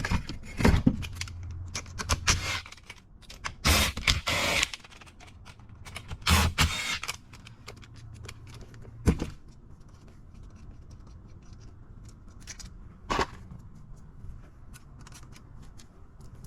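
Metal parts and hand tools being handled: scattered clicks and clinks, with a few longer scraping rattles and sharp knocks.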